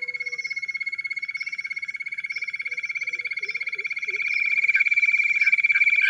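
Jungle bush quail calling: a high, rapid, steadily pulsed trill held without a break, growing louder about two-thirds of the way through.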